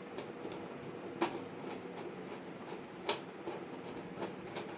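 Light clicks and taps of gas-stove parts being handled during disassembly, with two sharper clicks about a second in and again about three seconds in, over a faint steady hum.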